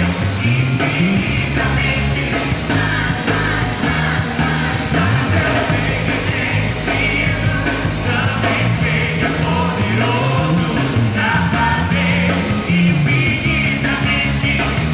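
A band playing a rock-style song live, with a singing voice over a steady bass line.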